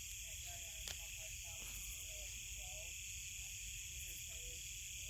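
Night chorus of crickets: a steady, high-pitched trilling with no break, joined by faint short chirps lower down.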